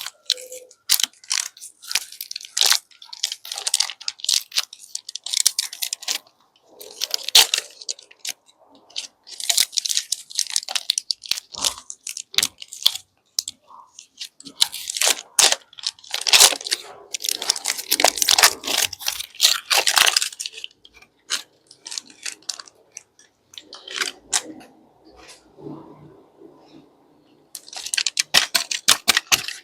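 Plastic candy wrappers crinkling and tearing as sweets are unwrapped: dense crackling in bursts of a few seconds, with short quieter pauses between them.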